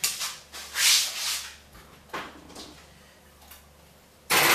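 A kitchen oven being opened and a glass baking dish put onto its metal rack: a few short scraping, clattering noises at the start and about a second in, then a loud, sudden scrape near the end.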